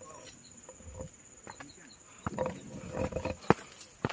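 Footsteps on a dirt trail, irregular steps and scuffs, over a steady high-pitched insect buzz.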